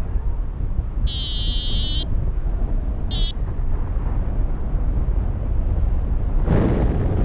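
Syride Sys'Nav V3 variometer beeping: a high tone held about a second, then a short beep about two seconds later, the sound a variometer makes when the glider is climbing in rising air. Steady wind noise on the microphone runs underneath and grows louder near the end.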